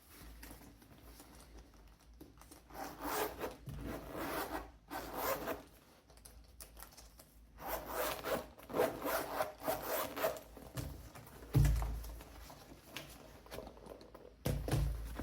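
Quick rubbing strokes on a leather bag in two spells of about three seconds each, then a couple of soft thumps as it is handled.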